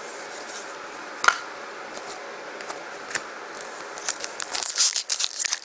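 Trading cards being handled at a table: two light clicks, then rustling and crinkling building from about four seconds in.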